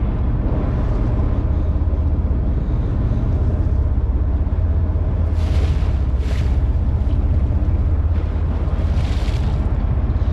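Water splashing at the boat's hull: two quick splashes about five and a half seconds in and a third about three seconds later, over a steady low rumble of the boat and wind.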